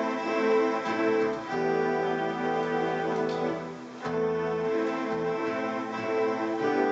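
Ambient looped music: layered, sustained pitched tones from guitar synth and a cello sample over bass guitar, with a low bass note held in the middle that drops out about four seconds in.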